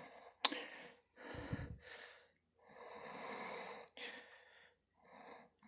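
A person's breaths close to the microphone: a soft click about half a second in, then three quiet breaths, the middle one the longest.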